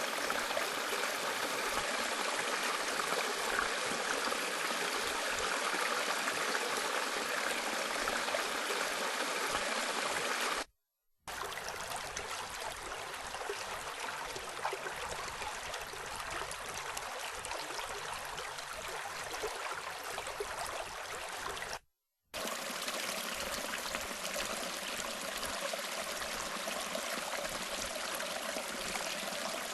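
Running water, like a stream or trickle, in three separate takes of about ten seconds each, divided by two brief silences.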